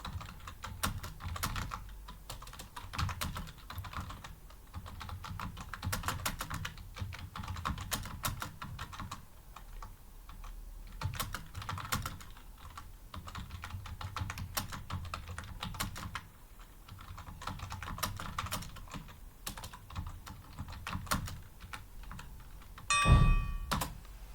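Fast, continuous typing on a computer keyboard during a speed test: dense, uneven keystroke clicks. Near the end there is a louder thump carrying a brief ringing tone.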